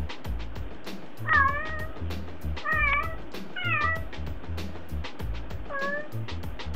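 A Siamese-mix house cat meowing four times, short calls spaced about a second or two apart. Background music with a steady beat plays throughout.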